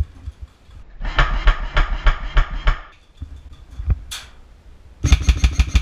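Airsoft rifle firing two bursts of rapid mechanical clacks: a burst of about two seconds, then a shorter, louder one near the end, with a brief hiss in between.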